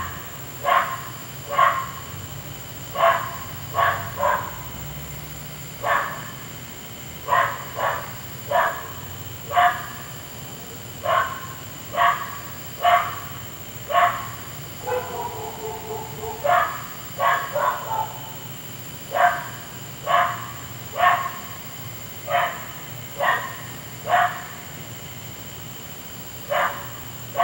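A dog barking over and over, single and double barks about once a second, with one longer drawn-out cry about halfway through.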